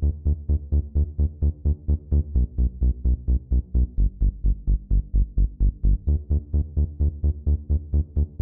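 Background electronic music with a steady, pulsing bass beat, about four to five beats a second.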